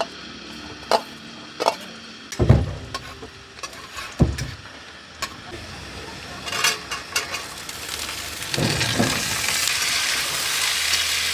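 Vegetable frying in a metal kadai on a gas stove. A faint sizzle of chopped chillies and spices in oil comes first, with knocks and clinks of a steel plate and spatula against the pan. About eight seconds in, mixed vegetables go into the oil and a louder, steady sizzle takes over as they are stirred.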